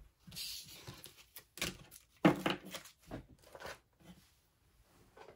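Binders and plastic card sleeves being handled on a table: a rustle in the first second, then a run of knocks and plastic rustles, the loudest about two seconds in.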